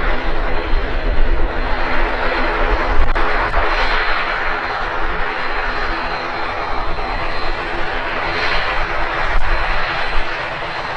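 ATR 72 turboprop's engines and propellers running, a steady loud drone with held propeller tones under a broad roar and a thin high whine.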